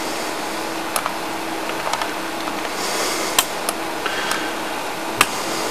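Several sharp clicks from a computer mouse, spaced irregularly a second or so apart, over a steady hiss and a low hum.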